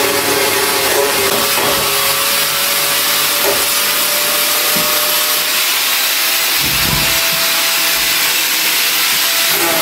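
Electric angle grinder with an abrasive disc running and grinding the rusty steel body panel of a Ford Escort convertible. It gives a steady high whine over a harsh hiss of metal being ground, and the whine rises a little in pitch in the second half.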